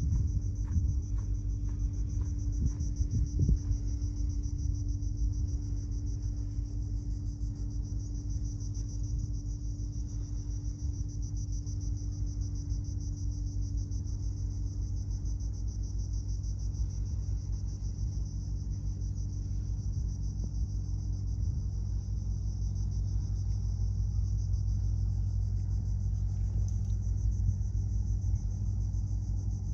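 A steady low engine-like hum with several fixed tones, under a continuous high insect trill. A few knocks sound in the first few seconds.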